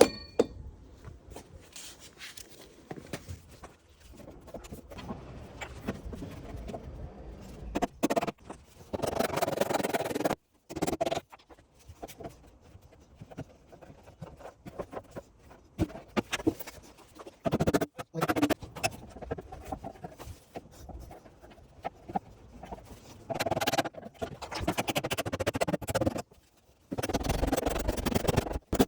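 Irregular hammer taps on the Audi A1's crumpled metal wing as the dent is worked out, broken by a few abrupt cuts.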